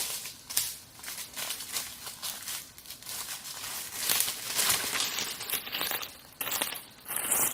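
Dry vegetation rustling and crackling in a dense, irregular run of crinkles and snaps.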